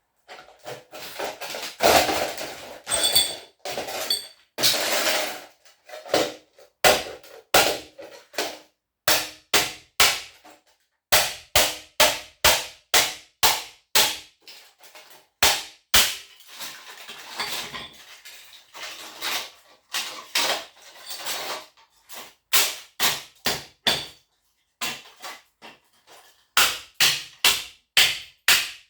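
Hatchet blows chopping apart a scrap electric motor to free its copper windings: sharp metal impacts in runs of quick strikes, about two a second, broken by short pauses. A few longer scraping, rattling stretches come between the runs, and some blows near the start ring briefly.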